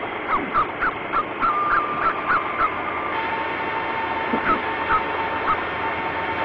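Pomeranian yapping in a quick run of short, high-pitched barks, about three a second, thinning out after about three seconds, over a steady hiss and a thin steady tone.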